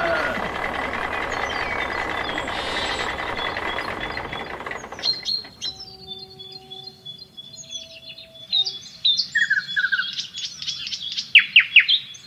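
Steady vehicle engine noise fades out about five seconds in. Birds then chirp and twitter in quick, sharp calls that grow busier and louder near the end.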